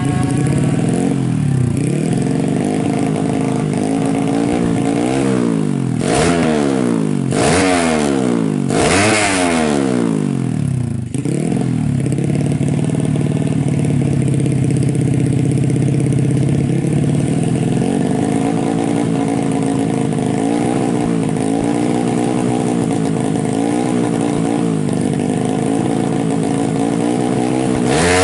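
The single-cylinder four-stroke engine of a Suzuki Smash, bored out to 130cc and fitted with an AHRS exhaust, is revved up and down about five times in quick succession. It then runs at a steadier speed with small, regular rises and falls, and revs up sharply again near the end.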